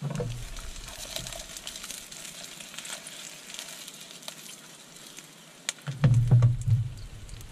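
Sausages sizzling and crackling in a frying pan on a gas hob. The pan is shaken on the burner, with a louder clatter about six seconds in.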